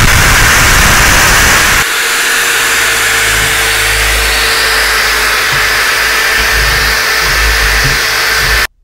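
A power tool running steadily, a loud even hiss with a faint constant tone through it. The sound changes abruptly about two seconds in and cuts off suddenly just before the end.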